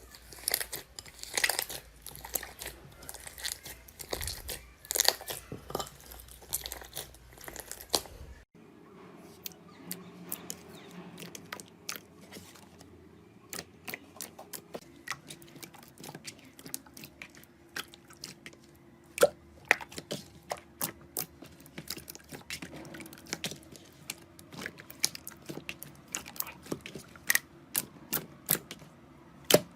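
Slime being squeezed and pressed by hand, giving off many small crackling clicks and pops. The clicks are dense at first; about eight seconds in they turn sparser and sharper over a faint low hum.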